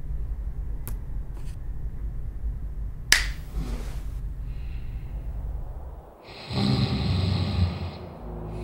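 Low steady rumble with a couple of faint clicks and one sharp snap about three seconds in, then a burst of hiss near the end.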